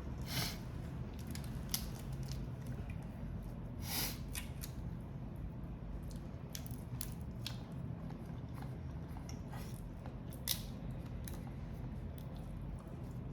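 Eating sounds from a seafood meal: scattered clicks, crackles and squishes of grilled prawns and crab being handled, pulled apart and chewed, over a steady low hum. Two longer, hissier crackles come about half a second and four seconds in.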